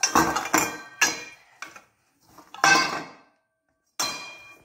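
Stainless-steel mixing bowl knocking and clanking against the table as maida dough is pushed and kneaded in it by hand, each knock ringing briefly; about five knocks at uneven intervals.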